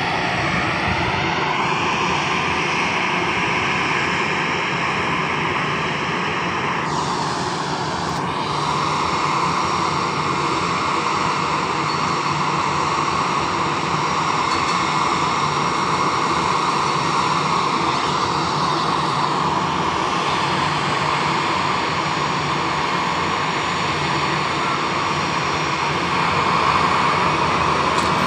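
Jet airliner's engines running, a loud steady roar with a whine that rises in pitch over the first couple of seconds and then holds.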